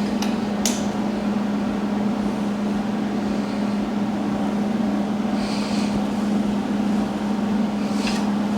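A few sharp metal clicks and knocks from hand tools being used to tighten a part on a dirt bike, two near the start and one near the end, over a steady low hum.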